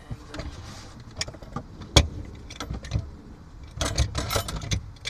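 Hard objects being stowed and shifted by hand: scattered clunks and metallic clinks, with a sharp knock about two seconds in and a burst of rattling clatter near the end.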